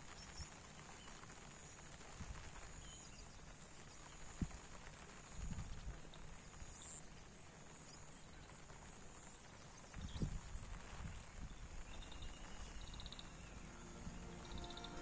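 Quiet outdoor ambience by a lily pond: a faint steady hiss, with a few low thuds of wind on the microphone and faint chirps near the end.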